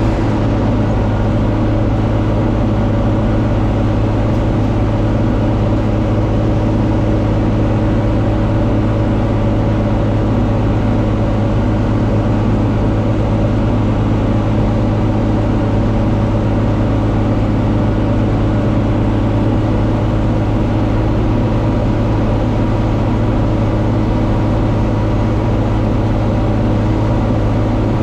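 John Deere 4250 tractor's six-cylinder diesel running steadily under load while driving a Kuhn VB 3155 round baler through the field: an even, unbroken drone that holds one pitch throughout.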